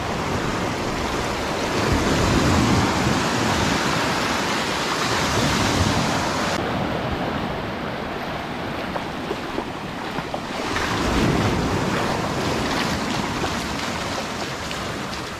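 Small waves breaking and washing up over a sandy beach in the shallows, the wash swelling and easing about three times.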